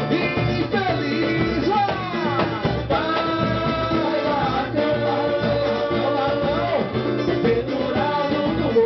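Live samba and pagode group playing, with sung melody over the band.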